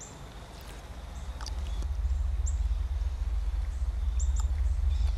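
A deep low rumble swells in over the first two seconds and then holds steady, with a few short high bird chirps over it.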